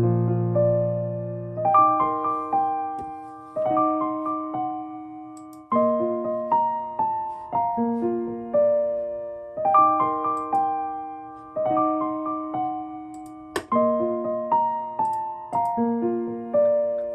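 Piano music: a gentle melody of struck notes that ring and fade, in phrases that start over about every two seconds.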